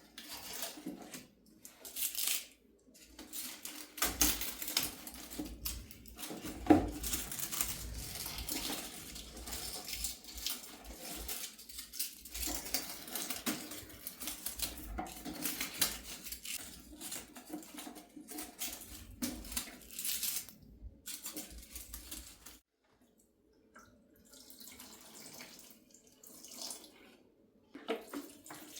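Water running from a tap into a sink, with scattered clinks of dishes being handled; it comes in short spurts at first, then runs steadily and shuts off abruptly about 22 seconds in, leaving fainter intermittent splashes and handling sounds.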